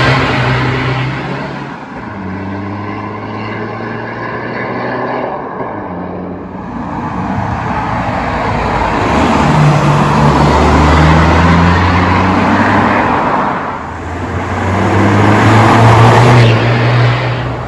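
Tuned 2.0 TDI diesel engine of a Mk2 SEAT Leon, around 300 bhp, accelerating hard with a loud exhaust. It swells and fades in three loud pulls: one at the start, one about ten seconds in and one near the end.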